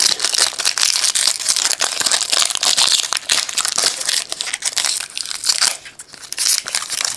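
Foil wrapper of a trading card pack crinkling and tearing as it is ripped open and handled, a dense run of crackles that eases off briefly about six seconds in.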